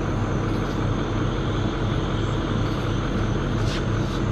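Pickup truck engine idling steadily, a continuous low hum.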